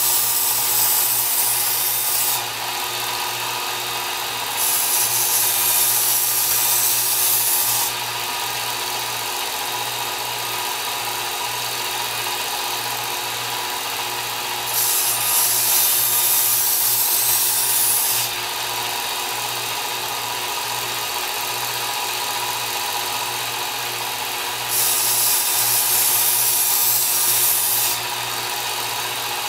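Work Sharp Ken Onion Edition belt knife sharpener running steadily at its slowest speed, its motor humming. Four times, for about three seconds each, a knife edge drawn across the moving abrasive belt adds a loud grinding hiss: light deburring passes.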